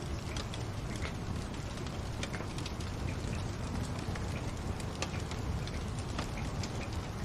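Wood fire crackling: scattered sharp pops and ticks over a steady low rush.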